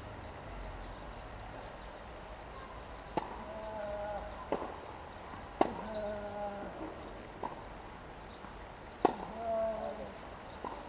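Tennis rally on a hard court: a racket striking the ball and the ball bouncing, six sharp pops a second or two apart, the loudest about five and a half and nine seconds in. A short voice sound follows three of the hits.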